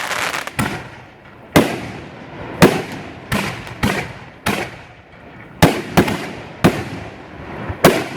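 Aerial fireworks shells bursting one after another, about ten sharp bangs, roughly one a second and sometimes closer, each trailing off in a short echo.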